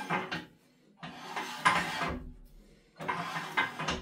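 The heavy banjo of a Neureiter Twister XL wood lathe being slid along the lathe bed by its lever, scraping in three strokes of about a second each.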